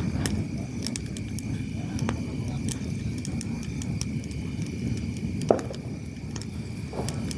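Large wood bonfire burning: a steady low rumble of the flames with frequent sharp crackles, and one louder pop about five and a half seconds in.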